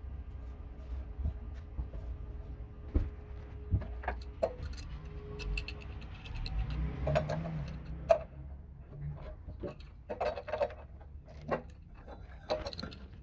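Scattered metal clicks and knocks of a water heater's water-line connector being threaded on and tightened by hand and with a wrench.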